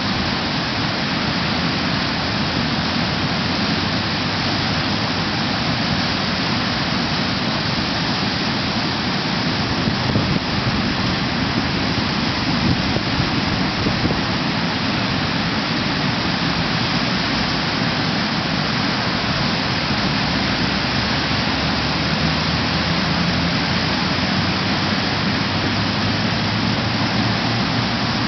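Steady loud rushing of a river in flood, muddy floodwater pouring over a weir and churning below it.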